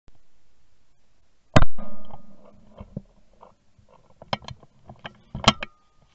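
A single loud, sharp knock about one and a half seconds in, then several lighter clicks and taps, over a faint steady electronic hum: handling noise picked up by a rifle-mounted scope camera.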